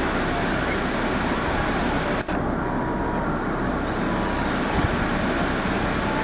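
Steady road-traffic noise, with a momentary dropout a little over two seconds in.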